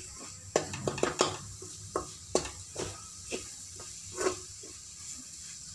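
A spoon scraping and clinking against a metal kadai in irregular strokes while a spiced onion-tomato masala is stirred, over a steady faint sizzle of the frying mixture.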